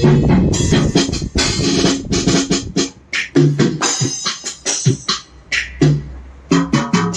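Roland SPD-20 Pro electronic percussion pad being played: a string of quick sampled drum and effect sounds, sharp hits mixed with short pitched notes, with brief gaps between phrases.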